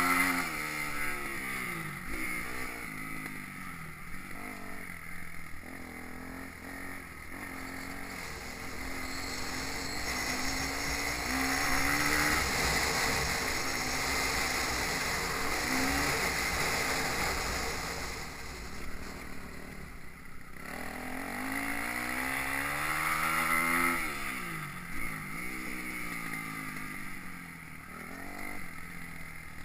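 Motocross bike engine revving up and down through its gears, loudest at the start and again about twenty-four seconds in. Wind buffets the microphone throughout.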